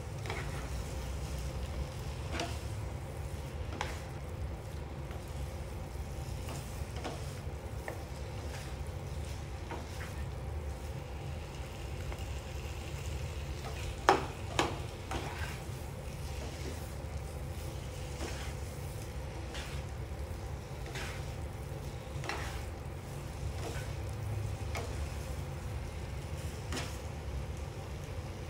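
Black plastic slotted turner stirring and turning stir-fried pork belly and kimchi in a nonstick frying pan, with scattered clicks of the turner against the pan and a louder double knock about halfway through. Beneath it, a faint sizzle of frying food over a steady low rumble.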